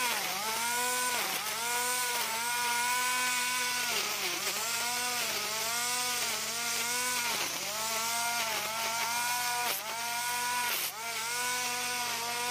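Electric angle grinder rigged as a grass trimmer, its motor whining steadily and dipping in pitch about once a second as the cutting head bites into grass, then recovering speed.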